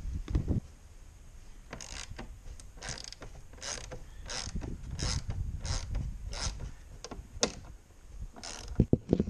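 Hand ratchet wrench being worked in about a dozen short rasping strokes, a little under a second apart, with a couple of knocks near the end.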